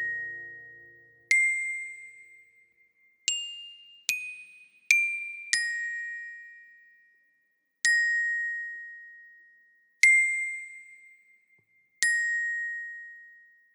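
High metallic chime notes struck one at a time, eight in all at uneven intervals, each ringing and fading away. They move among a few nearby pitches as the closing notes of a song.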